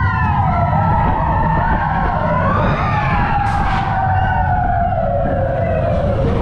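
Mine-train roller coaster on the ride: a steady low rumble of the train running on the track under long, high wailing tones that slowly fall in pitch.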